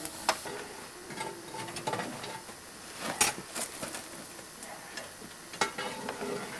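Small live-steam locomotive hissing steadily, with several sharp metallic clicks and knocks as it is worked on.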